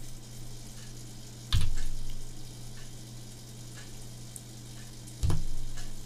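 Steady low electrical hum with faint hiss, and a few light clicks of computer mouse and keyboard. Two louder short thumps come about a second and a half in and near the end.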